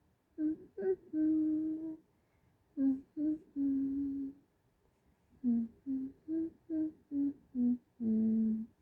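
A woman humming a short tune: three phrases of quick notes, each closing on a held note, the last phrase ending lowest.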